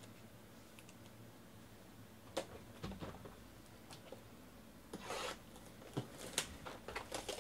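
Sealed cardboard trading-card box being handled and set on a table: faint scattered taps and knocks, with a short rustle about five seconds in.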